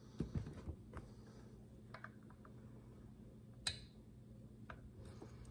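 Small clicks and taps of needle-nose pliers and the metal oil pump against the chainsaw housing while the oiler and its oil-line clips are worked into place: a cluster of knocks in the first second, a few light clicks about two seconds in, and one sharp click a little past halfway.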